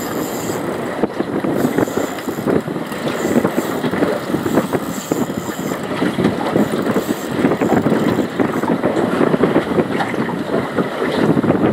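Wind buffeting the microphone aboard a small boat at sea: a steady, rumbling rush of noise.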